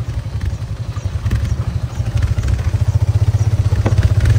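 Small motorcycle engine running steadily while riding over a rough, unpaved road, with occasional knocks and rattles. The engine gets a little louder about halfway through.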